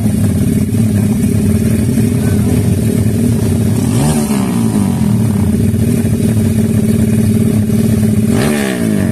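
Two race-tuned motorcycle engines idling loudly side by side while waiting at the start line of a drag race, with a throttle blip about four seconds in and another near the end.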